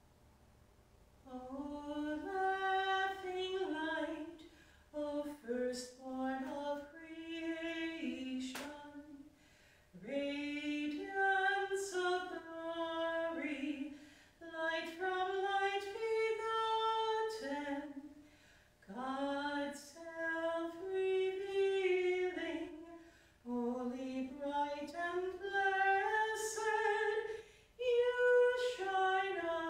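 A woman's solo voice singing a hymn without accompaniment, in phrases of a few seconds with short breaths between.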